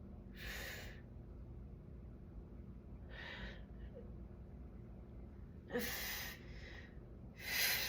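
A woman breathing audibly: four separate deep breaths, each about half a second long, spaced a second or two apart.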